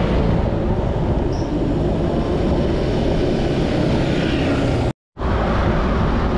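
Steady wind rush buffeting the microphone of a camera riding along on a bicycle at speed. The sound cuts out completely for a moment about five seconds in.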